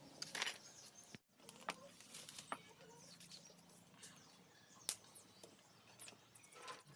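Faint bird calls with scattered light clicks and knocks. The sound drops out briefly about a second in.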